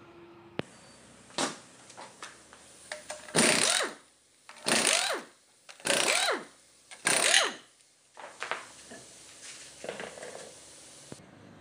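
Impact wrench undoing the wheel nuts on a rear steel wheel: four short bursts of hammering, one nut after another, each with a pitch that dips and rises, then a few small metal clicks.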